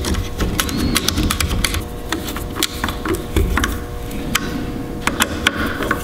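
Irregular small clicks and taps of a Phillips screwdriver turning the voltage regulator's screws into the back of an alternator, with hands knocking against the plastic and metal housing. A faint steady hum runs underneath.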